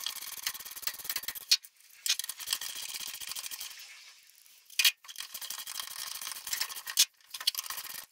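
Socket ratchet clicking in rapid runs of about two seconds each while backing out the 13 mm bolts that hold the shifter down, with a few sharp metallic clacks between the runs.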